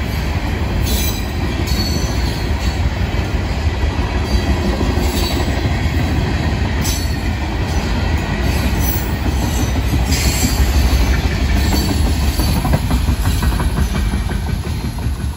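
Freight train cars rolling past: a steady rumble of steel wheels on rail with clickety-clack and brief, faint wheel squeals. The sound eases a little near the end as the last car goes by.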